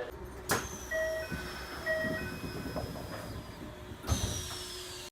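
Keikyu train door chime sounding two identical short beeps about a second apart. A sharp click comes just before the beeps and a knock about four seconds in, as the doors work.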